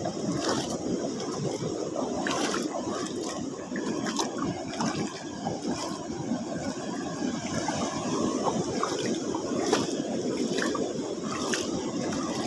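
Sea water sloshing and washing among shoreline rocks: a steady churning with many short, irregular splashes.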